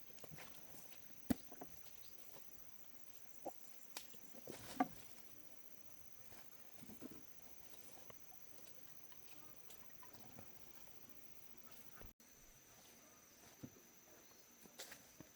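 Insects chirring in a steady high, thin drone, with scattered light knocks and clicks, the loudest about a second in and again near five seconds in.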